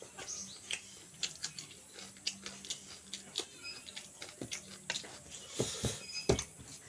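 A person chewing a mouthful of chicken and rice: wet mouth clicks and smacks several times a second, with a few heavier dull thumps about two-thirds of the way in.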